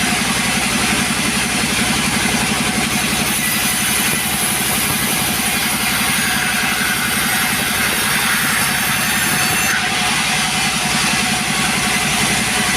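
Two-stroke chainsaw engine running steadily at speed, with a brighter hiss between about three and ten seconds in.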